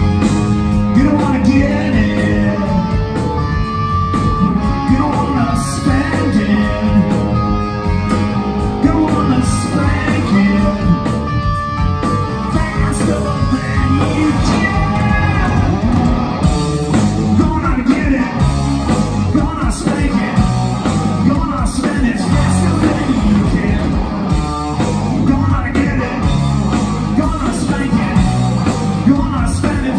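Live rock band playing loud: electric guitars and a drum kit, with a singing voice in the mix.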